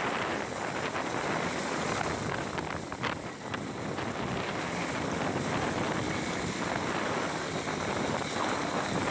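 Steady rush of wind noise on the microphone of a moving motorcycle.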